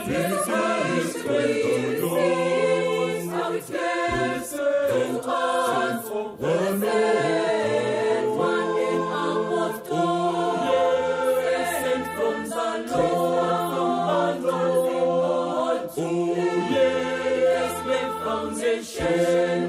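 Gospel choir of mixed men's and women's voices singing a praise song in harmony, over sustained low notes and a light beat.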